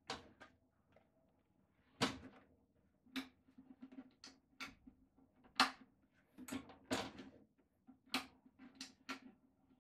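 Irregular plastic clicks and knocks from a blender's jug being pressed, twisted and reseated on its base and its lid pushed down, a dozen or so over the span; no motor runs, as the blender will not start.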